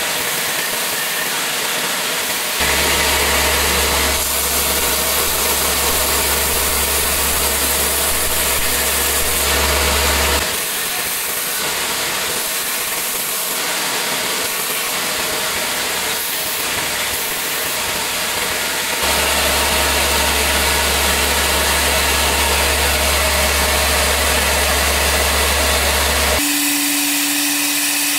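Belt grinder running steadily while a wooden knife handle is sanded against its abrasive belt. The sound grows louder with a deep rumble for two long stretches, about a tenth of the way in and again past the middle, and a steady hum comes in near the end.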